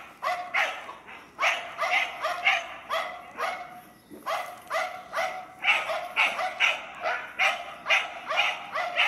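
A dog barking excitedly in play: a steady run of short barks, about three a second, with a brief pause about four seconds in.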